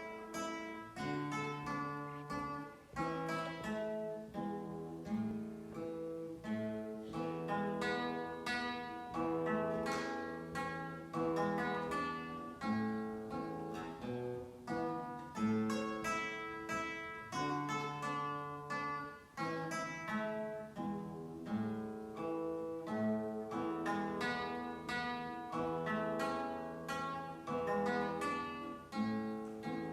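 Solo guitar played fingerstyle: a plucked melody over bass notes in an even, moderate pulse, the opening phrase returning about halfway through.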